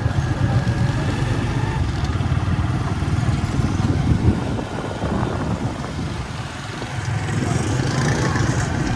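Motorcycle running while being ridden: a steady engine rumble with road noise.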